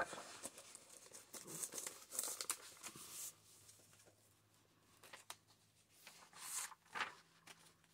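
Faint rustling and crinkling of paper and card pages in a handmade junk journal being handled and turned by hand, with small taps and flaps. It goes quiet for a moment about halfway, then a few louder page-turn rustles come near the end.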